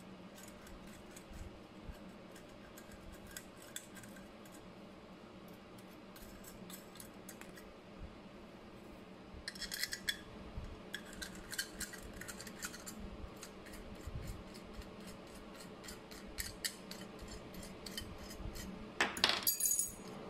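Small metal nuts and a brass gauge case clicking and clinking in the fingers as the nuts are worked off the rear studs of a Bosch voltmeter: scattered light metallic ticks, busier from about halfway, with a louder rattle near the end.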